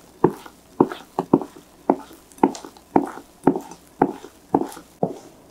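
Spatula folding meringue into a thick yogurt and egg-yolk batter in a glass bowl. Soft wet squelching strokes come about twice a second, each a cut-and-scoop pass made so the meringue is not crushed.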